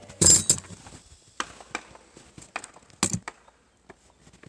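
Clatter and knocks from handling parts and tools: one loud clatter just after the start, then scattered sharp clicks and knocks, a double knock about three seconds in.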